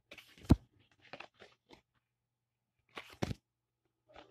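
Pokémon trading cards handled close to the microphone: a sharp tap about half a second in, a few lighter clicks and rustles after it, then two more taps about three seconds in.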